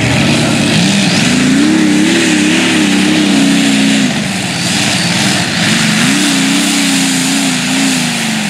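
Super modified pulling tractor's engines at full throttle under load as it drags the sled. The engine note climbs about a second in and holds, drops off about four seconds in, then climbs again around six seconds and sags near the end.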